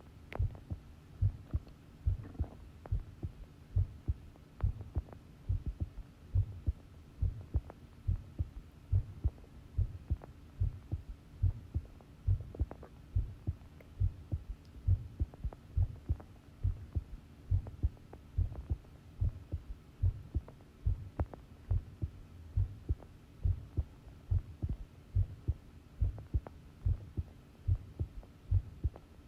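Human heartbeat recorded up close: a steady, regular rhythm of low, dull thuds, each beat a lub-dub pair, over a faint steady hum.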